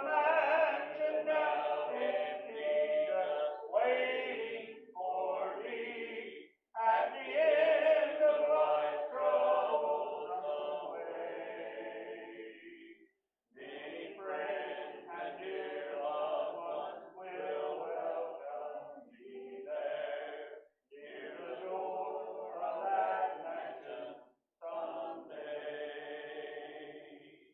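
A congregation singing a hymn a cappella, unaccompanied voices in phrases with held notes and short breaths between lines.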